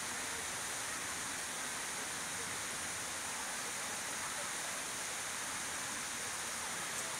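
Steady, even high-pitched hiss with no distinct events: outdoor background noise.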